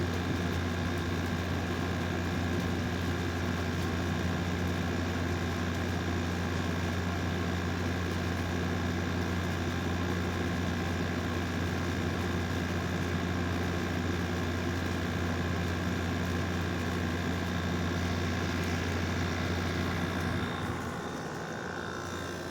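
2018 General Electric (Haier) 6,000 BTU wall air conditioner running: a steady compressor and fan hum with a strong low drone and a few steady tones above it. Near the end the low drone falls away and the sound gets quieter.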